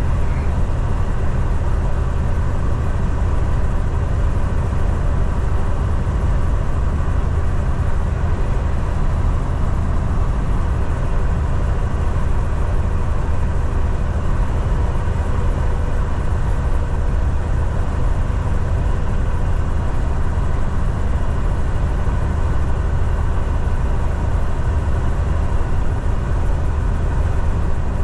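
Semi truck running at steady highway speed, heard from inside the cab: a low, even engine drone under steady road and tyre noise.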